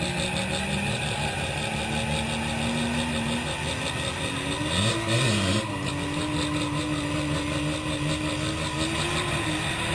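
Mazda RX-7 FC3S's 13B rotary engine running under way, its pitch climbing slowly at first. About five seconds in the revs swing briefly up and down at the loudest point, then hold steady and higher.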